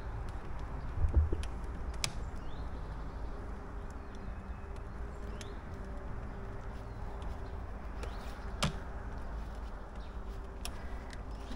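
A steady low rumble with a low thump about a second in and a few sharp cracks, the clearest about two seconds in and near nine seconds: the partly cut tree's wood fibres snapping as it settles under tension.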